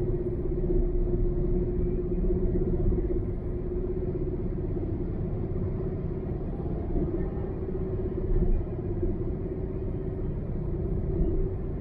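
A car driving at road speed: steady engine and tyre rumble with a constant low hum, swelling briefly a couple of times.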